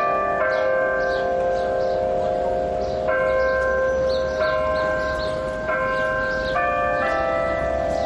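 The Delacorte Clock's bells playing a slow tune. A new note is struck every half second to a second and a half, and each note rings on under the next.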